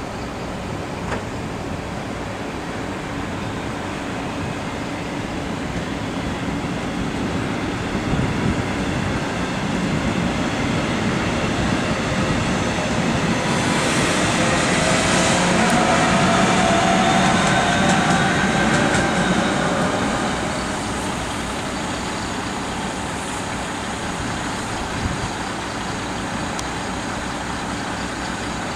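An electric locomotive-hauled double-deck passenger train passing: a steady rumble of wheels on rail that swells to its loudest about halfway through as the EU47 electric locomotive goes by, with its rising whine, then dies back to a steady lower rumble.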